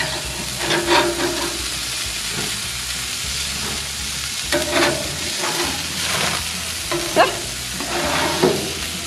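Burgers sizzling on a hot grill grate, with a spatula scraping and clinking against the grate several times as the patties are flipped.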